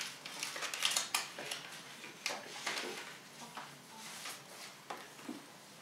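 Paper rustling and crackling as a greeting card is pulled from its envelope and opened. It comes as a run of short, sharp crinkles, busiest in the first few seconds and sparser after.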